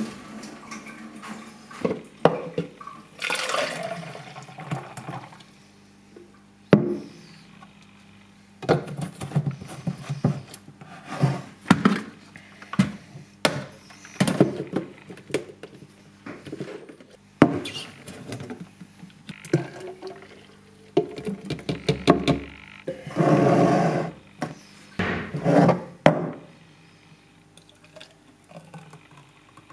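Green juice being poured and sloshing between a NutriBullet blender cup, a glass jug and a drinking glass, with several rushes of pouring liquid. Many sharp knocks and clinks of the containers being handled and set down on the countertop.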